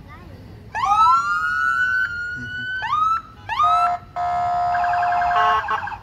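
Emergency vehicle siren sounding in bursts: a wail rises about a second in and holds high, then two short rising whoops, then a steady horn-like tone and a quick pulsing pattern near the end.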